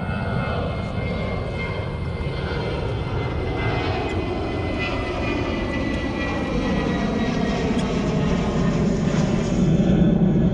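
Propeller airplane engine passing overhead, a steady drone whose pitch slowly falls as it goes by.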